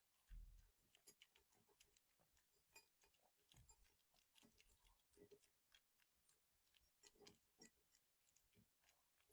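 Very faint, irregular clicking of a Pomeranian chewing its food, with a soft low thump near the start and another a few seconds in.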